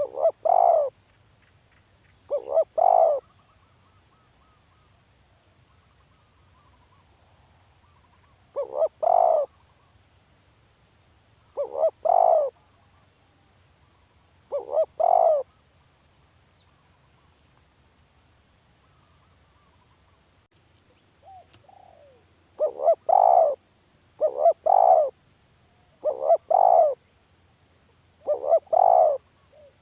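Spotted dove cooing: short two-part coo phrases, a quick grace note then a longer coo, repeated about ten times with a pause in the middle and a faster run near the end.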